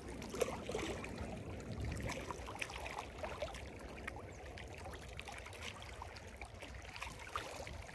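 Small sea waves lapping and trickling among shoreline rocks, with a stream of small splashes and a low wind rumble underneath.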